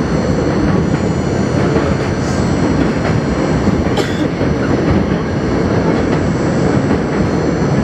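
R42 subway train running along elevated track, heard from its front window: steady rumble of wheels and motors, with a few sharper clicks as the wheels cross rail joints.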